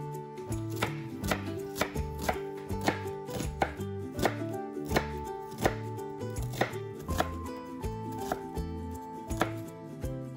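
Chef's knife chopping an onion on a wooden cutting board, with sharp knife strikes about two a second, over background music.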